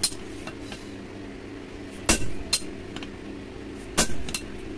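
Hand hammer striking red-hot steel held in tongs on a railway-rail anvil: four sharp blows in two quick pairs, about two and four seconds in, over a steady low hum.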